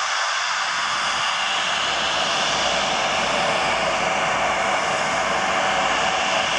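Twin-engine turboprop aircraft taxiing, its engines and propellers running with a steady rush that grows a little louder as it comes closer.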